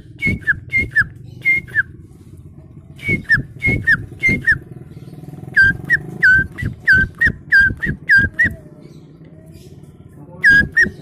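A person whistling by mouth in imitation of birdsong: short chirps that each slide down in pitch. The chirps come in quick runs separated by pauses, the longest pause near the end. A steady low hum lies underneath.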